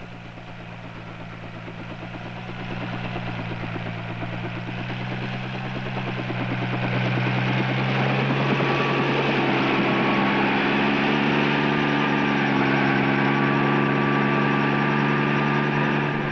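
Bell 47 helicopter's piston engine and rotor running up for takeoff, growing louder over the first half and climbing slightly in pitch as it lifts off.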